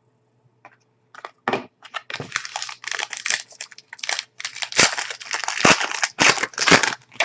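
Crinkly trading-card pack wrapper being torn open and crumpled, a dense run of rustling and crackling starting about a second in.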